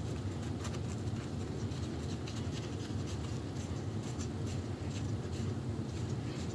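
Gloved hands screwing threaded brass pipe fittings together, with faint scratching and rubbing of the threads and gloves and light scattered clicks, over a steady low hum.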